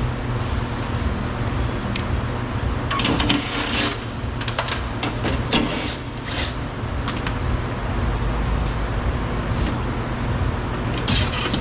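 Clicks and scrapes of parts being handled and worked loose on a car door, in clusters a few seconds apart, over a steady low hum.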